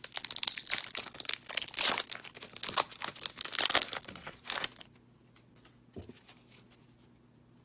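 Upper Deck hockey card pack wrapper being torn open and crinkled by hand, a dense crackling that stops about five seconds in.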